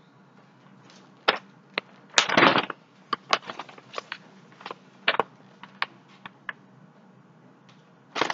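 Cardboard cookie boxes being handled: scattered clicks and knocks, with a short rustling scrape about two seconds in.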